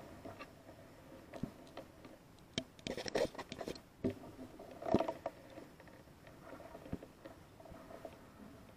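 Irregular rustling, scraping and clicking of brush and dry leaves being pushed through close to a rifle-mounted night-vision scope, with handling knocks. It is busiest about three to five seconds in, with the loudest knock near five seconds.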